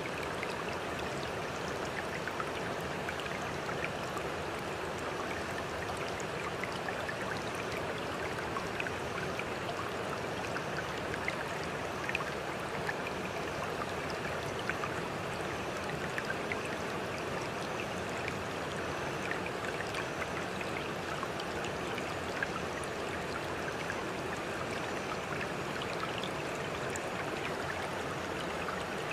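A steady, even rush of running water, with small scattered drip-like ticks through it.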